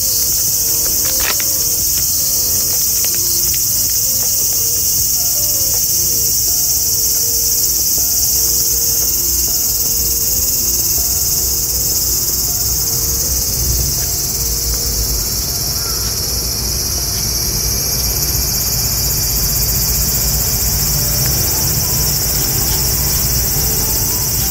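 Loud, steady, high-pitched chorus of insects shrilling without a break, with a low rumble beneath.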